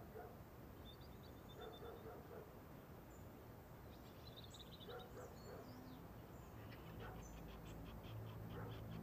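Faint birdsong: scattered short high chirps, then a quick run of repeated chirps over the last couple of seconds.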